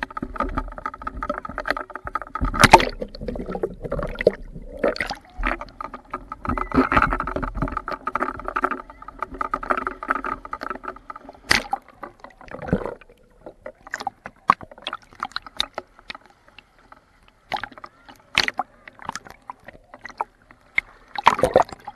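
Sound recorded underwater in shallow sea water: a steady hum of several held tones with knocks over it, the loudest a sharp knock about three seconds in; the hum stops a little past halfway, leaving scattered sharp clicks and knocks.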